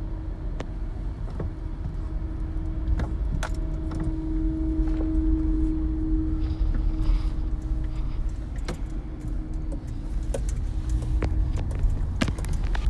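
Street traffic rumbling with a steady low hum from a vehicle, plus scattered light clicks and knocks.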